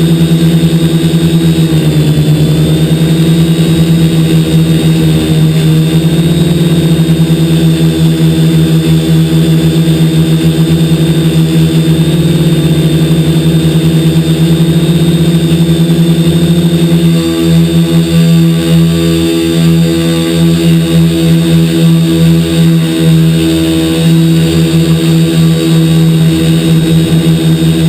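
TBS Discovery quadcopter's 2212 brushless motors and propellers running with a steady loud hum. From about two thirds of the way in, the pitch and loudness waver as the throttle changes.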